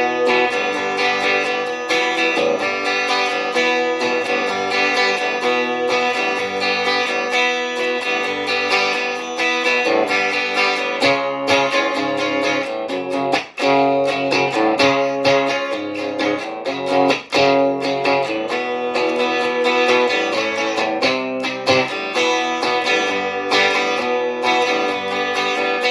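Guitar being played continuously, a steady run of chords and notes, with two very short breaks around the middle.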